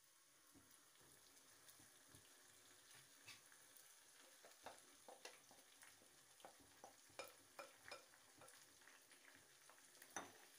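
Faint sizzle of yogurt-marinated chicken pieces frying on golden-brown onions in hot ghee, with scattered crackles and pops that grow more frequent from about four seconds in.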